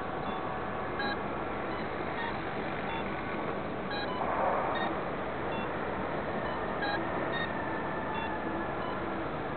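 Steady hiss with short, faint electronic beeps at varying pitches, about one a second, from the powered-up multicopter sitting with its propellers still.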